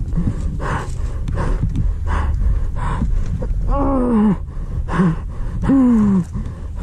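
Injured person breathing in quick, ragged gasps, with two long groans of pain that fall in pitch, one a little past the middle and one near the end.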